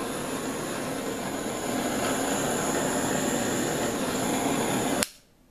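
Handheld gas torch burning with a steady hiss, passed over wet acrylic pour paint to bring up cells. It cuts off abruptly with a click about five seconds in.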